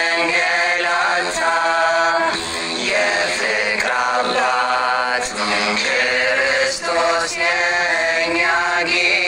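Ethiopian begena mezmur: a voice singing a slow spiritual chant-like song with begena lyre accompaniment.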